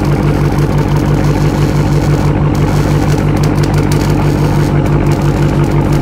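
Dodge Charger Scat Pack's 392 (6.4-litre) HEMI V8 idling steadily through an exhaust with its mid mufflers deleted, heard at the tailpipes.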